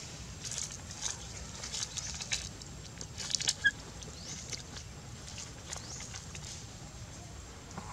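Baby monkeys moving about on dry dirt and leaves: scattered faint scuffs and rustles, mostly in the first half, with one brief high squeak a little past the middle, over a steady low rumble.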